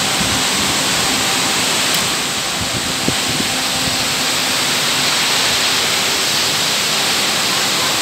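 A waterfall rushing over stepped rock ledges close by: a steady, loud noise of falling water, with a single sharp click about three seconds in.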